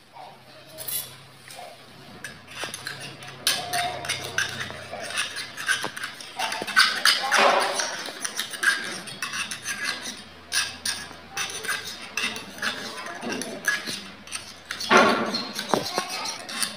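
Miniature stainless-steel toy utensils and cookware clinking and scraping as small spoons are picked up and dipped into a tiny pot: many light, irregular metal clinks.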